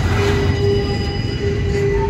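Double-stack intermodal freight train rolling past, its well cars rumbling on the rails, with a steady high wheel squeal that sets in just after the start and holds.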